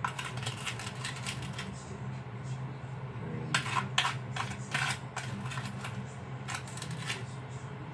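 Three runs of light clicking and clattering over a steady low hum: small containers and a cup being handled while creamer is added to coffee.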